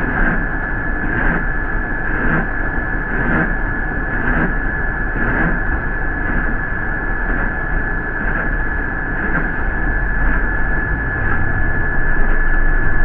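Interior noise of a city transit bus underway: a steady rumble of engine and road with a constant high-pitched whine, and a soft regular beat about once a second.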